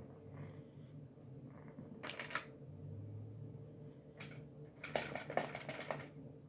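Two spells of quick clicking and rattling, about two seconds in and again around five seconds in, over a faint steady hum: a cat pouncing on and batting an automatic silicone tail-teaser toy.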